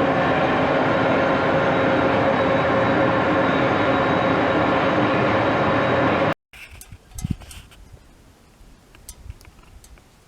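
A motor-driven tool runs steadily with a loud, even hum and rushing noise, then cuts off abruptly about six seconds in. Faint scattered clicks and taps follow.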